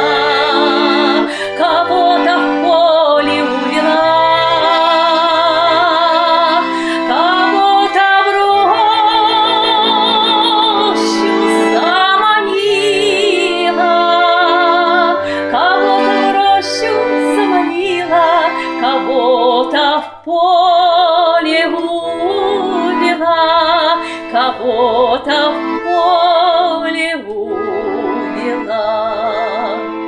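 Woman singing a Russian folk-style song with wide vibrato, accompanied by a button accordion (bayan) holding steady chords.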